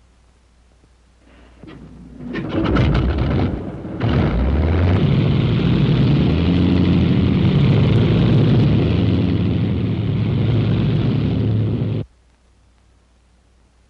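A bomber's piston aircraft engine starting, with a cloud of exhaust smoke. It fires in irregular coughs and pops, catches about four seconds in and runs on loud and steady. The sound cuts off suddenly near the end.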